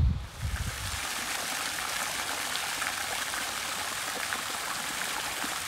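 Garden fountain jets splashing steadily into its basin.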